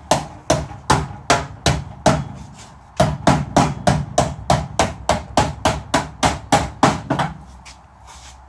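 Hammer blows on sheet steel, a steady run of about three strikes a second with a short pause about two seconds in; it stops about seven seconds in. The hammering bends a piece of the car's sheet metal up toward flush.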